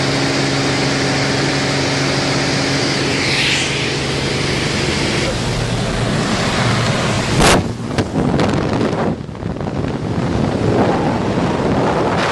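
Propeller airplane's engine droning steadily inside the cabin during the climb, with rushing wind noise. About seven and a half seconds in comes a sharp knock, and after it the rushing wind rises and falls.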